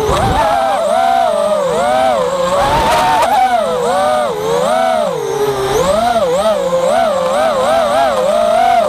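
FPV racing quadcopter's brushless motors and propellers whining, the pitch rising and falling constantly with the throttle as it weaves between trees, and wavering quickly up and down in the second half.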